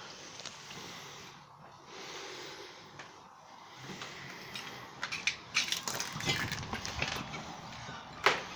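Crunching, scuffing and knocking of someone clambering over debris, irregular and starting about halfway through, with one sharp knock near the end.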